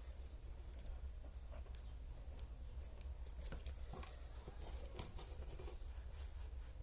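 Steady low electrical hum with faint short high squeaks recurring every half second or so and a few light clicks.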